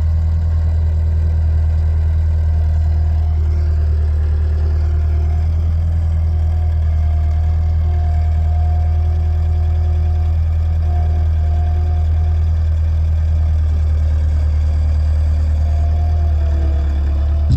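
An engine running steadily at a constant speed: a deep, even drone with a faint higher whine that comes and goes.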